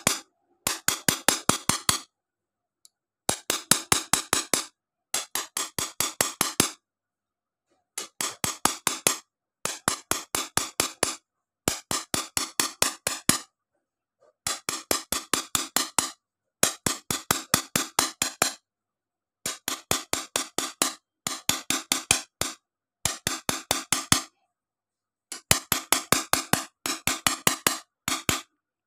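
A small hammer taps a hand-held metal engraving point against a sheet of glass, stipple-engraving it. The taps are quick and sharp, about six a second, and come in runs of one to two seconds with short pauses between.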